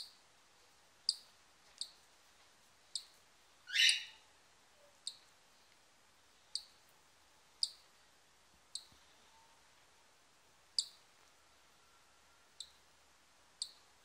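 Newly hatched cockatiel chick giving short, high, clicking peeps at irregular intervals, roughly once a second, with one longer and louder chirp about four seconds in.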